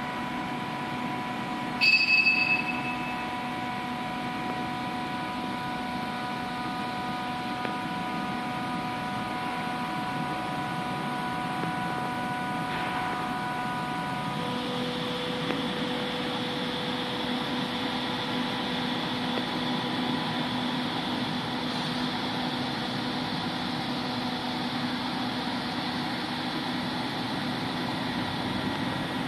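Automatic gabion (hexagonal wire mesh) weaving machine running: a steady mechanical hum with a motor whine, a loud clank about two seconds in, and a change in the whine's pitch about halfway through.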